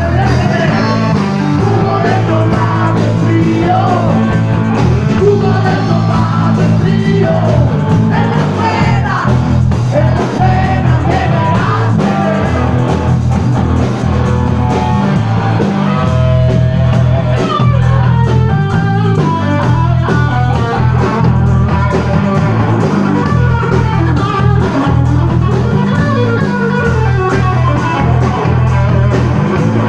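Blues-rock band playing a song: electric guitar and a steady bass line under singing.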